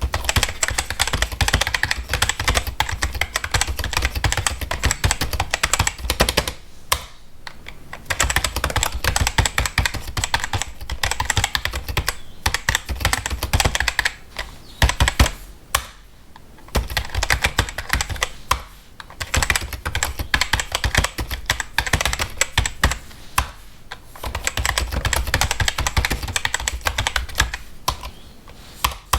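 Computer keyboard being typed on quickly, a rapid stream of key clicks in bursts broken by short pauses.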